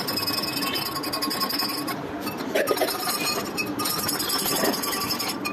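Metal spoon stirring a red drink in a glass jar, clinking and scraping against the glass in a run of short, sharp clicks.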